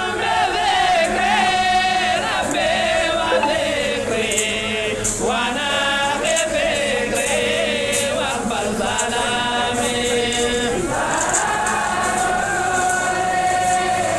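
A group of voices chanting together in unison, in long drawn-out phrases with held notes and short breaks between them.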